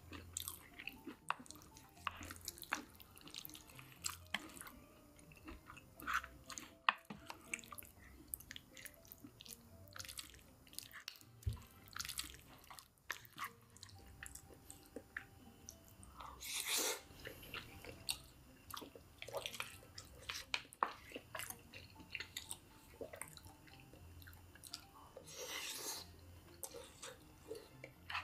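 Close-up mouth sounds of someone chewing and biting into crispy KFC fried chicken: wet chewing with frequent small crunches and crackles, and two longer crunching bursts, one about halfway through and one near the end.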